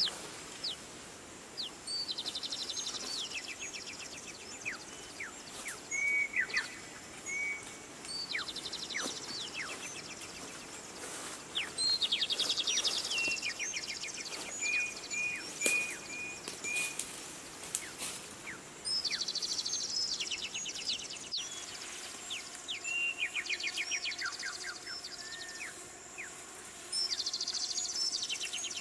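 Birds singing over a steady background hiss: trilled song phrases repeat every three to four seconds, interspersed with short whistled chirps.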